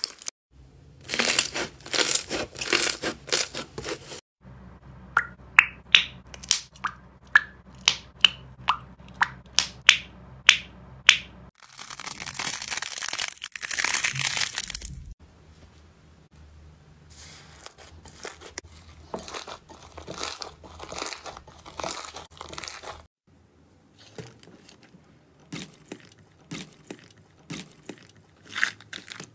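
Hands squishing and kneading slime in a series of short clips, giving wet crackling and clicking. One stretch has a run of loud pops about two a second, and another has a few seconds of continuous tearing as a thick slime is pulled apart.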